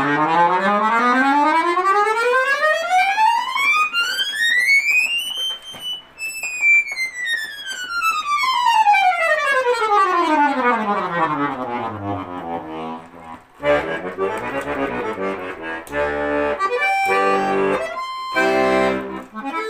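Bayan (Russian button accordion), a 'Yasnaya Polyana' with whole-plate reeds, playing a fast run of notes that climbs steadily for about six seconds and comes back down. After that it plays short, separate chords and notes.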